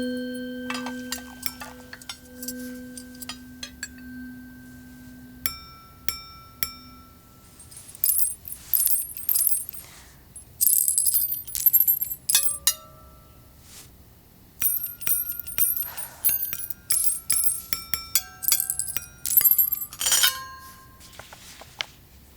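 Metal jewelry clinking against glasses and tableware and jingling, the strikes ringing as short pitched notes that together play a tune. A long ringing glass-like tone starts it off, followed by quick runs of clinks, rattles and chimes.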